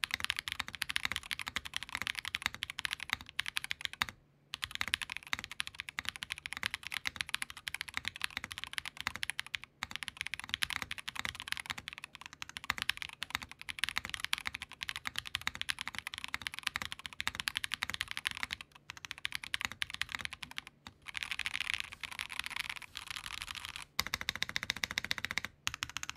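Fast, continuous touch-typing on a KBDFans Tofu60 2.0 60% mechanical keyboard built in top-mount configuration, with a few brief pauses and scattered keystrokes near the end. The keystrokes sound crisp, clean and consistent, not hollow or pingy.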